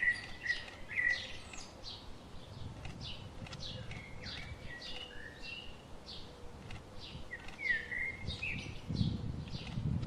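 Several birds chirping and calling together: a dense run of short, quick high notes, with a few lower warbled phrases at the start and again about eight seconds in. A low rumble rises under the birds near the end.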